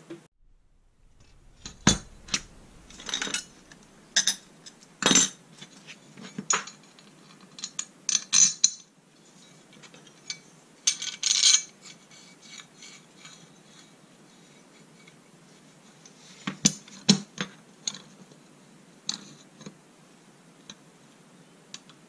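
Flat steel bar pieces handled and laid against each other on a workbench: scattered metal clinks and knocks, coming in several short clusters with quiet gaps of a few seconds between.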